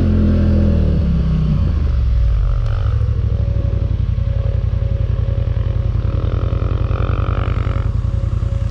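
ATV engine under throttle, its pitch dropping about a second and a half in as the throttle eases off, then running low and steady with an even pulsing beat.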